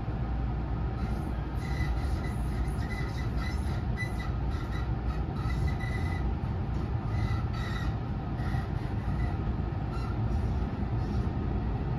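Running noise inside an unpowered trailer car of a JR West 207 series commuter train: a steady low rumble of wheels on rail. From about a second in, intermittent high-pitched squealing from the wheels comes and goes.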